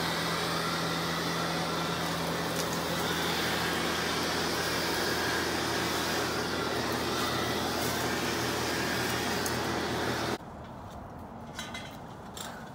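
Handheld leaf blower running steadily: a loud rush of air over a low motor hum. It stops abruptly about ten seconds in, leaving quieter background with a few faint clicks.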